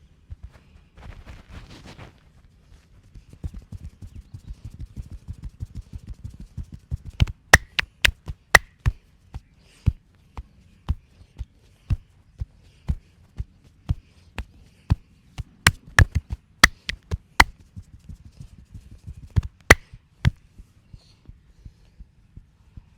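Hands working a man's head in a vigorous massage: a fast run of soft, dull thumps from tapping, with sharp slaps or claps scattered through it from about a third of the way in.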